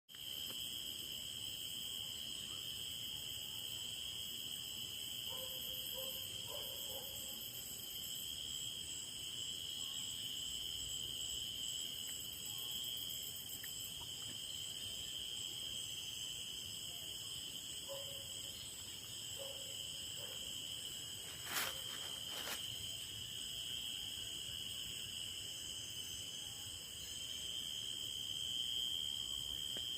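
Steady chorus of crickets and other insects, several continuous high-pitched trills at different pitches layered together, with a few faint low calls now and then. Two sharp clicks stand out about two-thirds of the way through.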